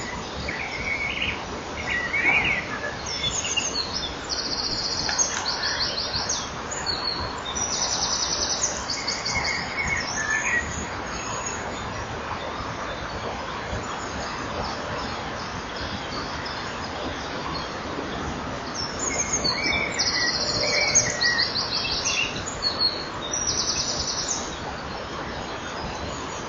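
High-pitched bird calls in two bouts, each a run of short, rapidly pulsing buzzy notes with a few lower chirps, over a steady hiss.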